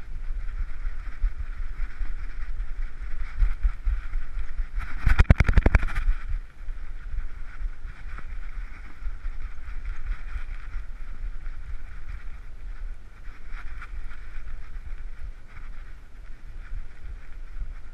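Rubbing and low thumping of a GoPro in its housing strapped to a moving dog, over a steady hiss. About five seconds in comes a rapid rattle of clicks lasting about a second, the loudest sound.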